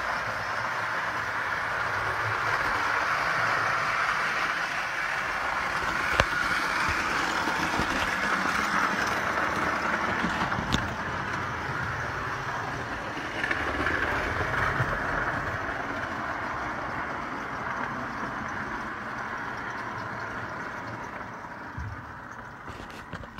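1912 Bing O gauge clockwork locomotive running on tinplate track: a steady whir of the spring-driven motor and wheels, with a couple of sharp clicks. It grows fainter over the last few seconds as the spring runs down.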